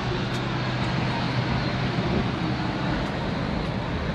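A car's engine running with a steady low hum as the car rolls slowly past, over the constant rumble of other idling cars.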